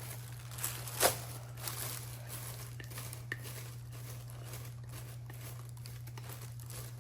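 Faint kitchen handling sounds: a few light knocks and clinks of a bowl and containers, the loudest about a second in, with soft plastic-bag rustling while leftovers are emptied. A steady low hum runs underneath.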